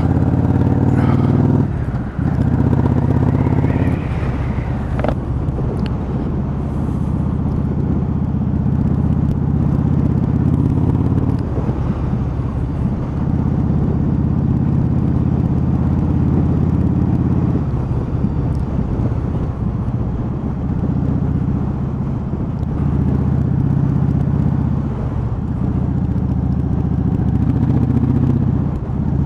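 Cruiser motorcycle engine running under way on the road. Its note shifts a couple of times in the first few seconds, with a short dip about two seconds in, then holds fairly steady.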